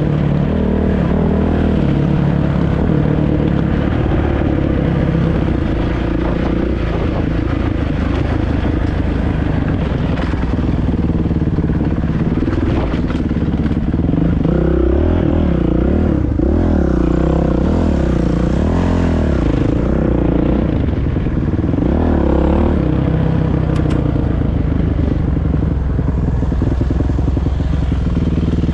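Kawasaki KX450 dirt bike's four-stroke single-cylinder engine running while the bike is ridden along a trail. The revs rise and fall again and again, most noticeably in the middle stretch.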